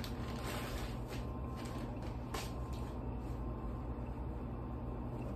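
Clothing packaging rustling and crinkling as a folded T-shirt is unwrapped and pulled out, with a few sharp crinkles in the first couple of seconds. A steady low hum runs underneath.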